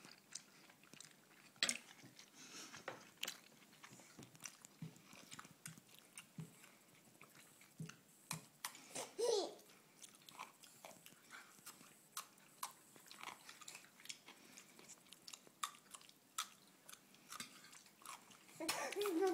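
A child biting and chewing raw cucumber, with scattered short, crisp crunches. There is a brief vocal sound about nine seconds in.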